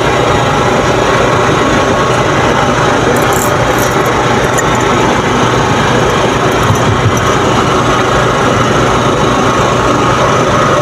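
Loud, steady engine-like drone with an even hum, unchanging throughout. A few faint high clicks sound about three to four seconds in.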